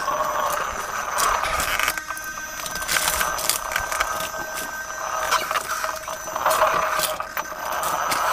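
Small RC rover's electric drive motor and gearing whining as it drives, the whine swelling and easing several times, with tyres crunching and scraping over gravel.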